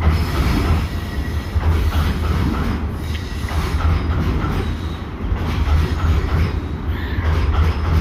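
Freight train of tank wagons rolling past: a steady loud rumble of steel wheels on the rails, with continuous clattering over the rail joints.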